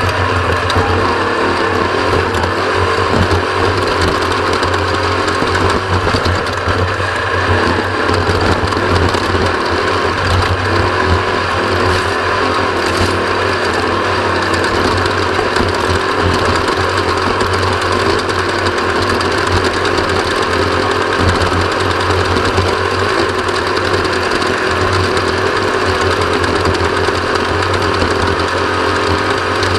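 Off-road race vehicle's engine running steadily under way, a loud, unbroken mechanical drone.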